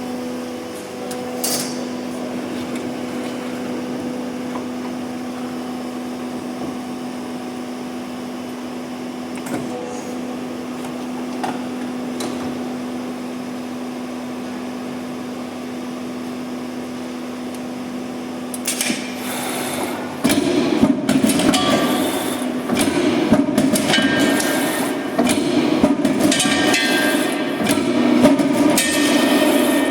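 CNC plate punching machine running with a steady hum, then from about twenty seconds in a louder, irregular run of knocks and clanks as it works a 25 mm thick steel plate.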